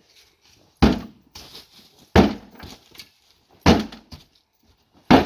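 Four heavy kicks against a front door, about one and a half seconds apart, each a loud thud with a short rattle after it; the locked door does not give.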